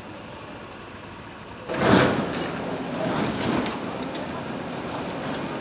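Heavy construction machinery working on a track-demolition site: a low steady running noise, then a sudden loud crash about two seconds in, followed by continuing rumble with scattered clatters.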